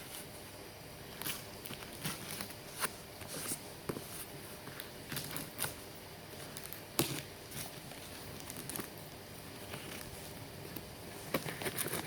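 A parcel's packaging being handled: irregular light taps, clicks and crinkles, several a second at times.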